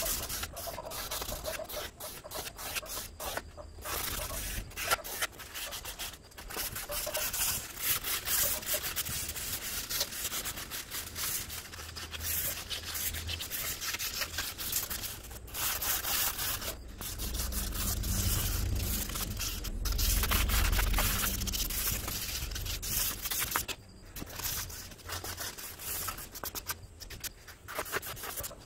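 Sandpaper rubbed by hand in quick back-and-forth strokes over a knife's zelkova-wood handle scales, a dry scratchy rasp broken by a few short pauses.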